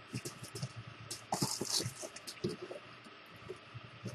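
Paper and plastic packaging being handled: irregular crinkling and rustling with small taps, busiest about a second and a half in.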